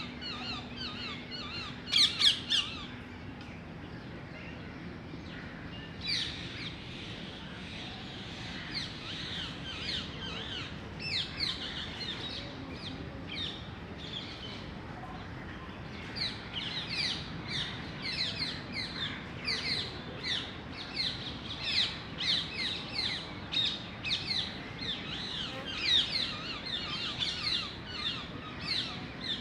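Birds calling in short, quick chirps and squawks. The calls are scattered at first, with a loud cluster about two seconds in, and come in a dense, almost continuous run through the second half.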